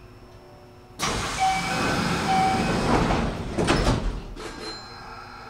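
Commuter train's pneumatic sliding doors opening: a sudden burst of compressed-air hiss about a second in that fades away, with two short beeps and a rattle as the doors reach their stops.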